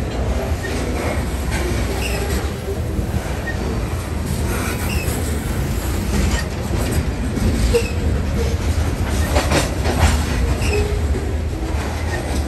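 Freight train's covered hopper cars rolling past, with a steady low rumble of wheels on rail and short high wheel squeaks every couple of seconds. There is a brief louder clatter near the end.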